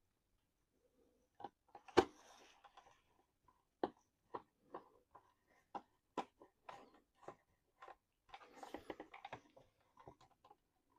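Faint small clicks, about two a second, with scratchy handling now and then, from a small screwdriver turning screws into a plastic 1/18-scale RC truck body and bed; the sharpest click comes about two seconds in.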